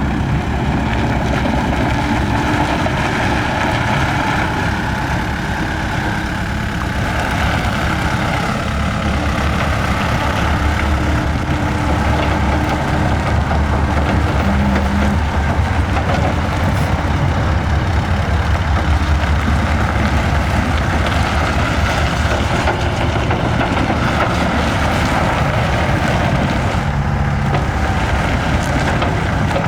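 Diesel engine of a 2011 Takeuchi TL230 tracked skid steer running steadily, its low engine note growing stronger about seven seconds in.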